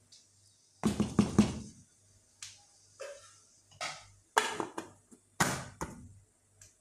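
Wooden spoon knocking and scraping against a metal cooking pot of rice, with a cluster of three sharp knocks about a second in and several more after. Near the end, an aluminium pot lid clatters as it is set on the pot.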